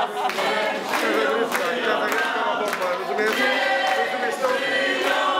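A group of people singing together, many voices at once, with scattered hand claps.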